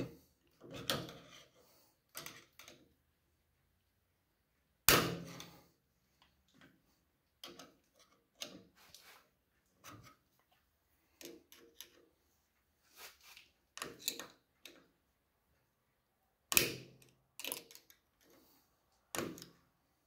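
Screwdriver tips clicking and scraping against the steel snap ring and housing of a John Deere 4440 tractor's PTO bearing quill held in a vise, as the stubborn ring is pried at. The clicks and knocks come irregularly: the loudest about five seconds in, and two more sharp ones near the end.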